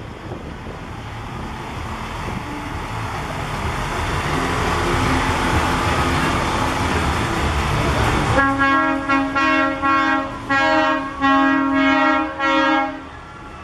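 Parade lorry rolling slowly past close by, its running noise building. Then, about eight seconds in, a vehicle horn sounds in a quick run of about seven or eight toots of uneven length and stops sharply.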